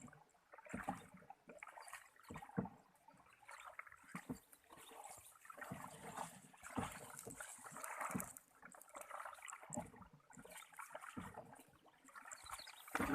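Water splashing and sloshing around a small paddled boat (sampan), with irregular knocks on the hull.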